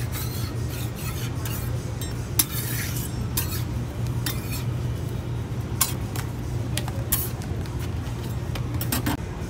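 Metal scraper spatulas scraping and clinking against a steel crepe griddle as a thin crepe is folded and lifted off. A few sharper clicks stand out, over a steady low hum.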